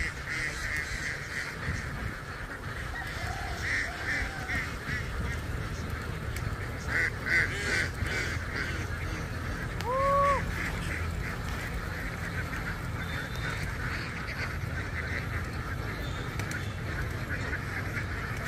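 A large flock of domestic ducks quacking together in a dense, continuous chatter, with louder flurries now and then. About ten seconds in, one short, clear call that rises and falls stands out above the flock as the loudest moment.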